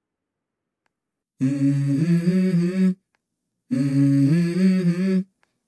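The start of a background song: after a moment of silence, a voice hums a short phrase that steps up from a lower note to a higher one, twice, each phrase lasting about a second and a half.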